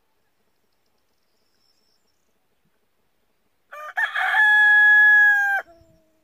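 Rooster crowing once, starting about four seconds in: a few short broken notes run into one long held note, about two seconds in all, which cuts off suddenly.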